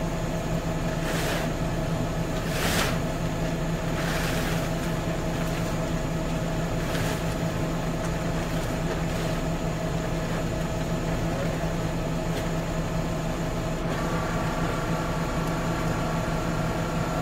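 Fendt tractor's diesel engine running steadily, a constant hum, with a few short rushing noises in the first several seconds. About fourteen seconds in, a higher whine joins the hum.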